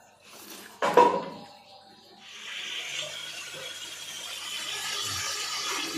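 Chicken pieces sizzling in oil in a steel kadai, a steady hiss that starts about two seconds in. A brief, loud pitched sound comes about a second in.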